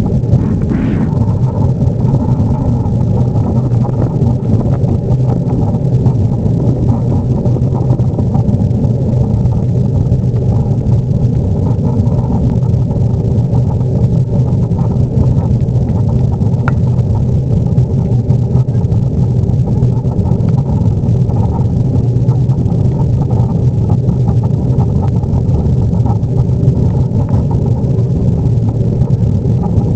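Boeing 737-800's CFM56 turbofan engines running at high power during takeoff, a loud, steady, unchanging rumble with a low drone, as heard from inside the cabin.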